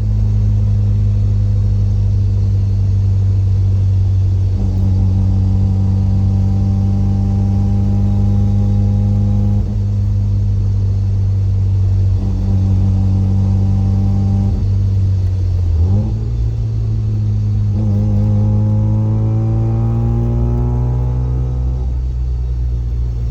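Mazda RX-7 FC driving, with a steady low exhaust drone under differential gear whine carried into the car through solid delrin subframe and differential bushings. The whining tones come in about five seconds in, drop out and return, and rise in pitch over the last few seconds as the car accelerates.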